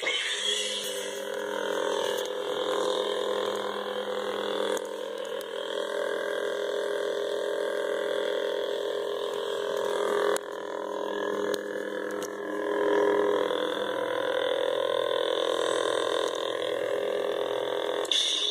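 Ultrasaber Emperor's Hand lightsaber's sound board igniting the blade, then a steady electronic hum from the hilt's speaker that swells and fades as the saber is moved.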